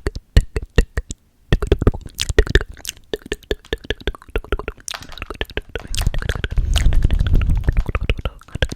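Long fingernails tapping and clicking rapidly close to the microphone, in quick irregular runs with a brief pause just after the start. A low rumbling stretch comes in about six seconds in, under the clicks.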